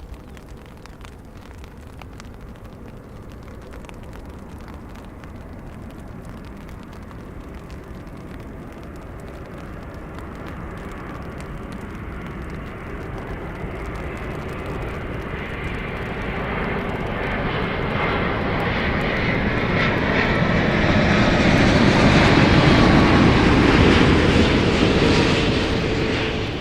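Jet airliner's engines growing steadily louder as it approaches, with a whine that falls slightly in pitch. The sound peaks about three-quarters of the way through, then starts to fade.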